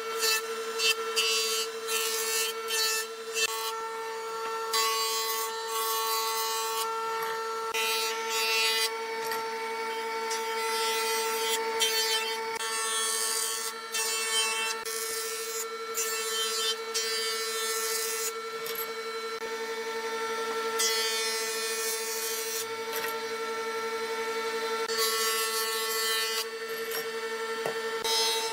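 An electric power tool's motor runs with a steady hum while it works wood. Irregular stretches of scraping come and go as the tool bites into the wood.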